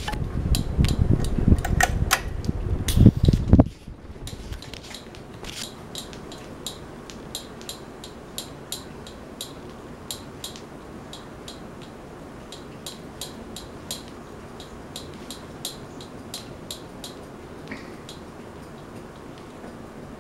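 Kenmore ceiling fan running with a steady low hum and a sharp, regular ticking about twice a second. For the first few seconds a loud low rumble with a few knocks covers it, then cuts off suddenly.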